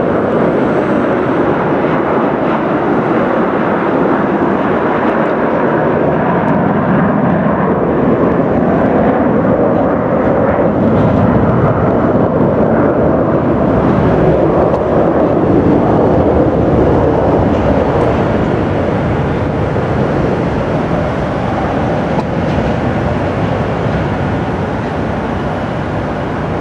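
McDonnell Douglas MD-82 airliner's two rear-mounted Pratt & Whitney JT8D turbofans at takeoff thrust during the takeoff roll: a loud, steady, rough roar. It swells as the jet passes, then eases slightly as it lifts off and climbs away.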